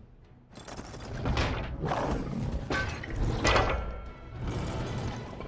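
Animated-film soundtrack: music mixed with mechanical-sounding action effects and a low rumble that swells up about half a second in, with several loud sweeping peaks.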